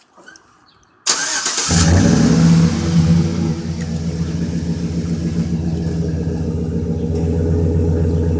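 2011 GMC Sierra 1500's 5.3-litre V8 starting through a freshly fitted Flowmaster Super 40 muffler: the starter cranks about a second in, the engine catches and flares up briefly, then settles into a steady idle.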